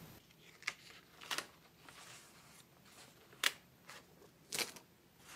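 Sheets of paper being handled and lifted off a desk: several short, sharp rustles.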